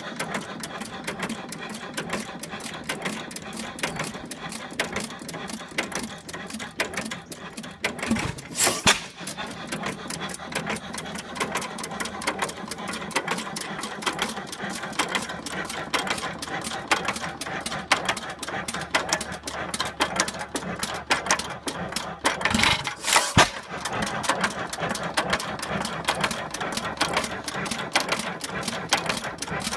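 6 hp Milwaukee (Associated) hit-and-miss gas engine running, its valve gear, igniter and governor making a fast, steady mechanical clatter. Two louder bursts stand out, about a third of the way in and again about three quarters of the way in.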